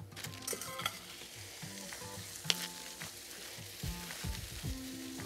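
Shredded hash browns frying on a hot Pit Boss Sierra flat-top griddle, sizzling steadily as beaten eggs are poured over them, with a single light click about two and a half seconds in.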